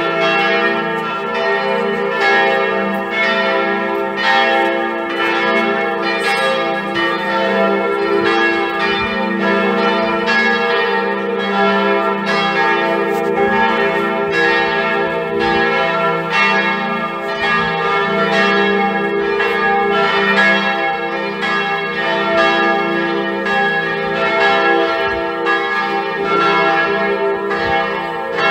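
Church bells pealing: many bells struck in quick, continuous succession, their ringing tones overlapping.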